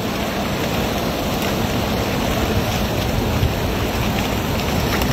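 Steady rushing noise of river water, with wind on the microphone.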